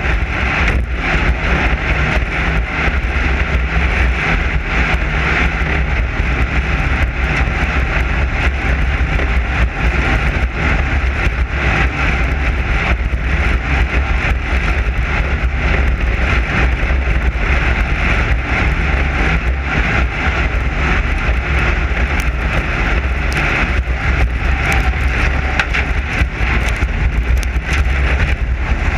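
Class 9 desert race car running at speed on dirt: a steady, loud engine and drivetrain drone with many short knocks and rattles throughout.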